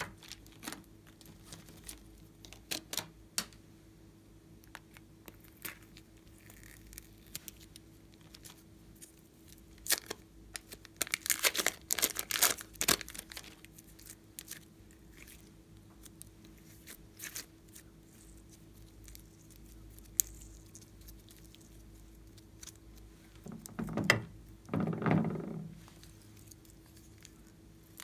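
Hands handling soft pink clay over a tray of slime: scattered small clicks, a dense run of crackling, tearing sounds about halfway through, and a softer, lower rustle near the end, over a faint steady hum.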